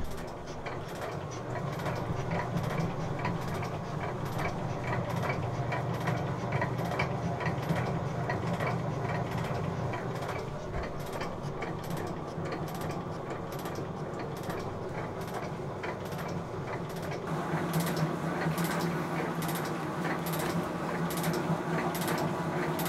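Sheldon metal shaper running a finishing cut with a round-nosed tool bit: a steady low hum from the motor and drive, with a sharp click repeating evenly about one and a half times a second. The hum grows louder about three-quarters of the way through.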